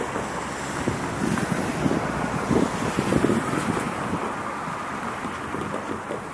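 Wind buffeting the microphone in uneven gusts over a steady background rumble, easing off toward the end.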